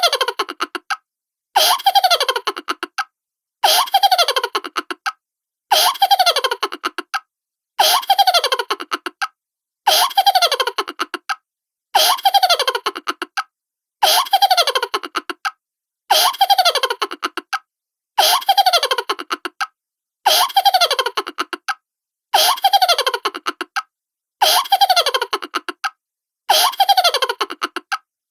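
Cartoon-style laugh, a rapid string of 'ha-ha' pulses sliding down in pitch, played over and over, about once every two seconds, with short gaps between.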